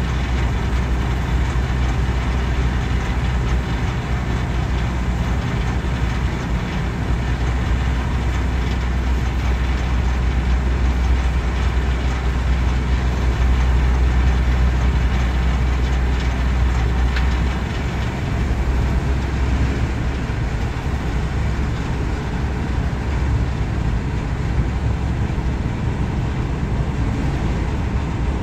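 Steady low rumble of a boat's engine running under way, with a constant rushing hiss over it.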